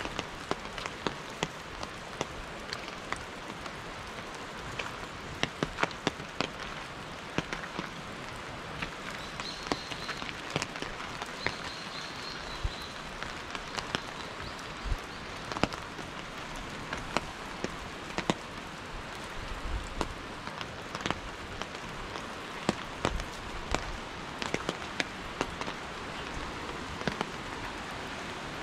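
Steady rain falling, with large drops striking close by in frequent, irregular sharp taps.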